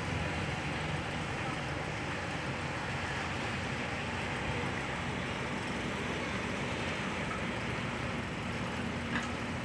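A boat's engine running steadily as a low drone under a constant rush of noise.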